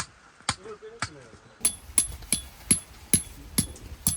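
A run of sharp, evenly spaced knocks, about two to three a second, coming slightly faster in the second half.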